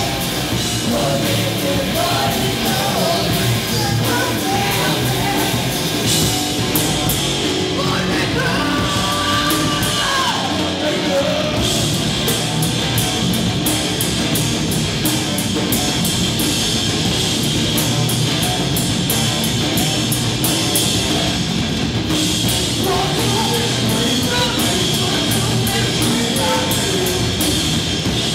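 Live rock band playing loud: electric bass guitar, drum kit with regular cymbal strokes, and a woman and a man singing at microphones.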